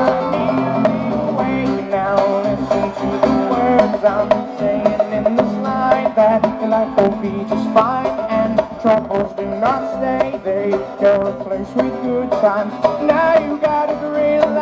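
Live jam-band music amplified through a PA: acoustic guitar and electric bass with hand drums struck by hand over a drum kit.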